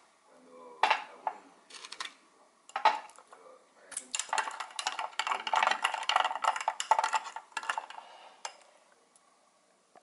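Clattering and clinking of hard objects: a few separate knocks, then a dense run of rapid clicks from about four to eight and a half seconds in, dying away near the end.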